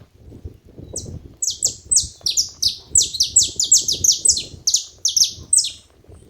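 Saffron finches calling together: a fast run of high, sharply falling notes, about four a second, starting about a second in and stopping shortly before the end. A low rustling and knocking runs underneath.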